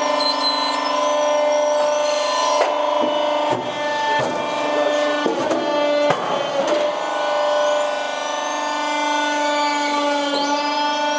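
Polyurethane-foam briquetting machine running: its motor and hydraulic pump give a steady hum with many overtones, with irregular clicks and knocks and thin high squeaks as the foam scrap is worked, mostly in the middle.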